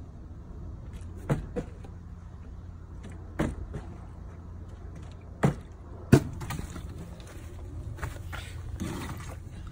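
A flipped bottle knocking against a wooden fence gate post: sharp knocks in three pairs about two seconds apart, the loudest about six seconds in, then a few fainter ticks.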